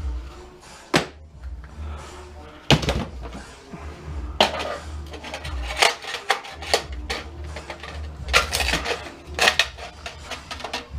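Metal parts of an old electric coil stove clanking and knocking irregularly, about a dozen sharp hits, as the stove is taken apart by hand.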